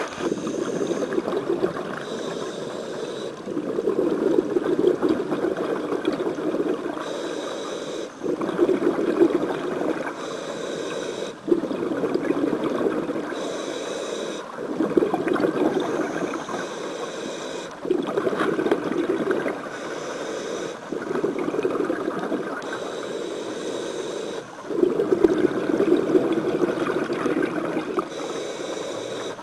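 A scuba diver breathing through a demand regulator underwater: a short hissing inhale, then a longer burst of bubbling exhaust, repeating in a slow, regular rhythm about six or seven times.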